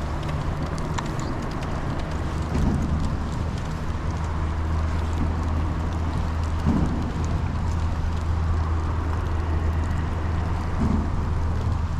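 Rain falling on and around a fishing boat, a steady patter with small drop ticks, over a continuous low hum.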